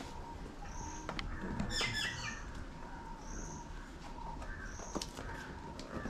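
Birds calling: a short high note repeating about every second and a half, and a louder descending call about two seconds in. A few light clicks and taps are mixed in.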